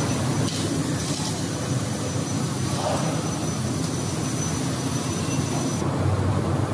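12 kW fiber laser cutting machine cutting thick steel plate: a steady rushing hiss over a low hum. Near the end the high hiss drops away and the hum goes on.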